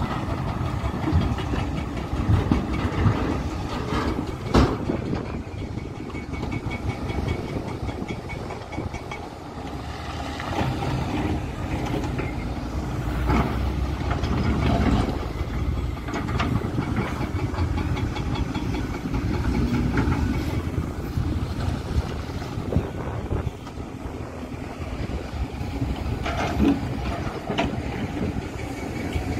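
Heavy excavator diesel engines running steadily, with scattered sharp clanks and knocks from the machines' buckets and rock.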